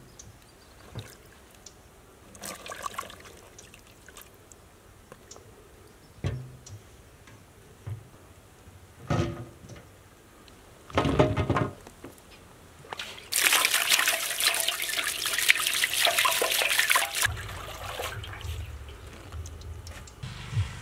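Water splashing in a steel basin as vegetables are washed by hand, with scattered knocks and splashes. A longer, louder stretch of pouring or splashing water comes about two-thirds of the way through.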